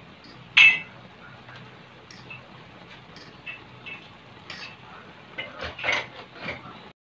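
Metal fork clinking and scraping against a metal wok while stirring taro leaves in coconut milk. One sharp loud clink about half a second in, light taps after it, then a quick run of clinks and scrapes near the end before the sound cuts off suddenly.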